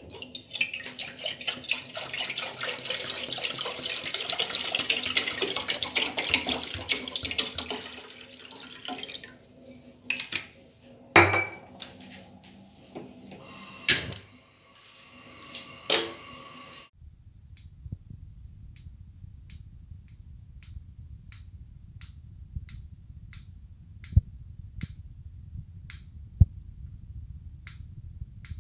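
Water pouring from a bottle into a metal saucepan, splashing and hissing for several seconds, followed by a few sharp knocks and clicks as the pan is handled on the gas stove. After that comes a knife chopping carrots on a wooden cutting board, light regular taps about twice a second over a low hum.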